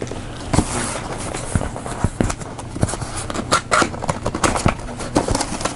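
A shipping package being handled and opened: irregular taps, clicks and rustles of cardboard and packing material.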